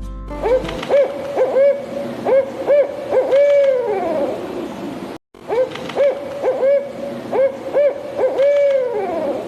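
An owl hooting: a quick run of short hoots ending in one longer, falling hoot, the sequence heard twice with a brief break between.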